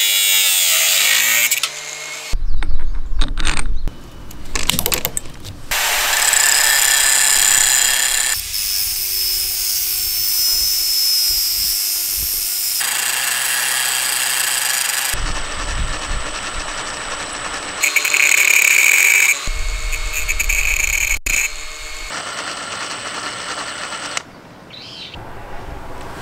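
A series of short power-tool takes, each starting and stopping. An angle grinder spins and grinds the end of a steel bolt, and its pitch falls as it winds down at the start. A cordless drill spins a bolt against the grinding disc to point it, and then drives the pointed bolt into softwood.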